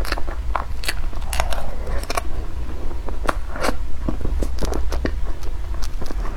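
Close-miked eating: a person biting and chewing food, with many sharp crackling clicks at an uneven pace, over a steady low hum.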